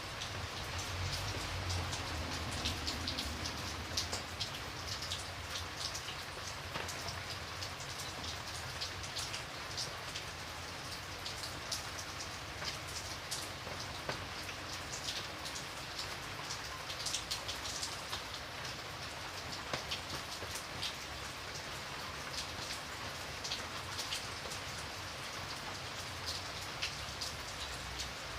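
Steady rain falling, a constant hiss with many distinct drops ticking and pattering on a surface.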